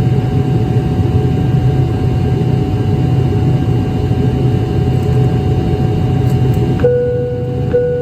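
ATR 72-600 turboprop engines and six-blade propellers running with a steady low drone. Near the end a steady electronic tone starts and breaks briefly about once a second.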